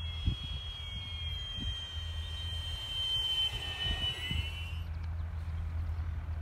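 Freewing A-10 model jet's twin 80 mm electric ducted fans, with Nerf whistles in the nacelles, making a high whistling whine as the jet passes low. The pitch drops as it goes by about four seconds in, and the sound cuts off about a second later. Wind rumbles on the microphone.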